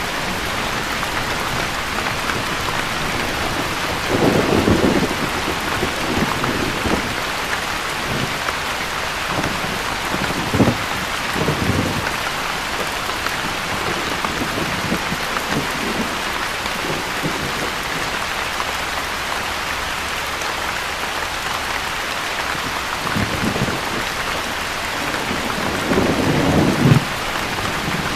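Steady rain falling, an even hiss, with a few brief deeper rumbles breaking through, the loudest about four seconds in and again near the end.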